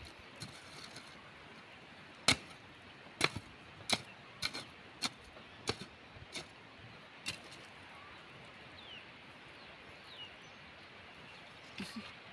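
A short-handled hand hoe's blade striking and scraping dry, stony soil around a young seedling, about nine strikes roughly two-thirds of a second apart, then it stops.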